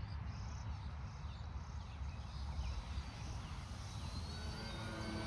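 Distant electric RC airplane's 3536 1000kv brushless motor and propeller droning in flight, over a steady low rumble; the pitched hum grows clearer about four seconds in.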